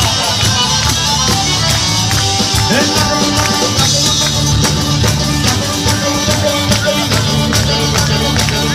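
Instrumental passage of a southern Italian folk tarantella, with sustained instrumental tones over a fast, steady percussion beat and no singing.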